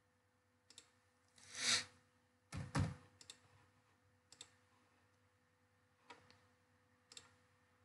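Faint computer keyboard and mouse clicks: two louder key presses about two and a half seconds in, then a few scattered soft clicks, over a faint steady hum.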